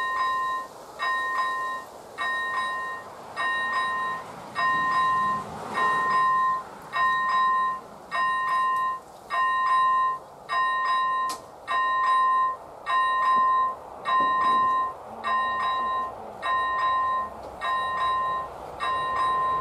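Electronic bell of an AŽD 97 railway level-crossing warning signal ringing steadily, about one chime a second, sounding the warning that a train is approaching.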